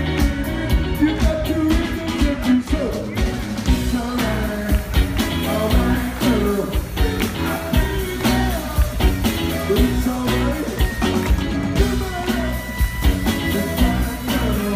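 A live rock band with a horn section plays over a steady beat while a lead singer sings into a microphone.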